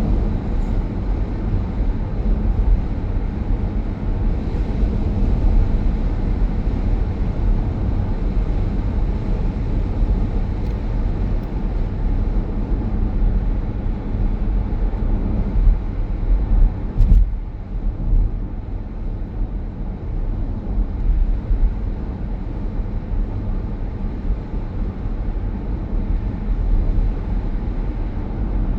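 Road and tyre noise of an electric car driving, a steady low rumble heard from inside the cabin, with a brief knock about 17 seconds in.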